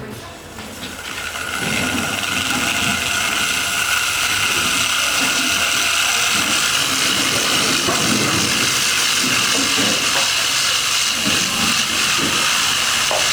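Angle grinder motor spinning up over the first couple of seconds, then running steadily at full speed with a high whine.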